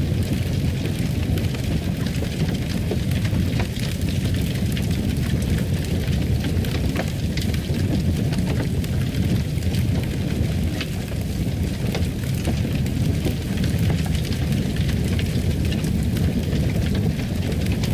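Fireplace fire burning: a steady low rumble with scattered crackles and pops.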